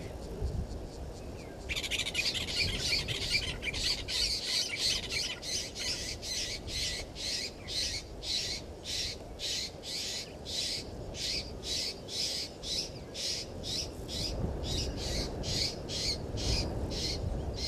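Blacksmith lapwing calling: a long run of short, sharp metallic notes, repeated evenly at about three a second, starting about two seconds in.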